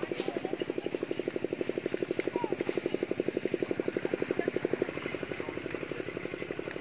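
A small engine running steadily, a fast, even chugging pulse.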